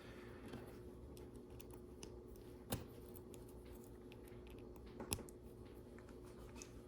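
Faint clicks and ticks of plastic Lego Technic pieces being handled and pushed together, with two sharper clicks about three and five seconds in, over a low steady hum.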